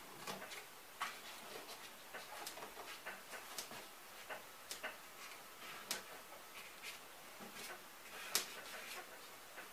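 Hands smoothing kraft paper along the edge of a cardboard cabinet: irregular crinkles, rustles and small taps, with a sharper click about eight seconds in.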